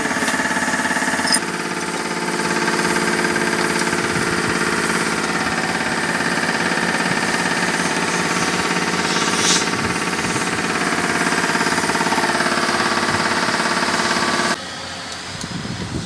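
Bulldozer's turbocharged diesel engine running steadily, heard close up in the engine bay. The sound drops away suddenly near the end.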